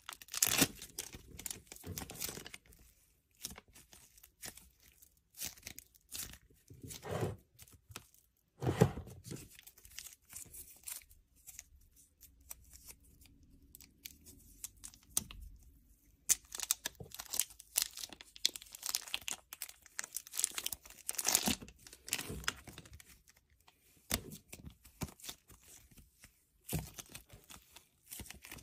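Slime being squeezed, stretched and pulled apart by hand, making irregular crackling, tearing sounds, with plastic packaging crinkling. It goes quieter for a few seconds about halfway through.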